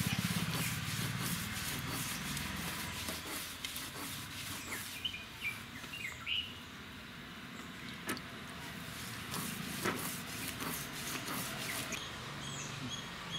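Stone roller grinding spice paste on a flat stone grinding slab: rapid, rhythmic scraping strokes of stone on stone. Birds chirp a few times, about midway and again near the end.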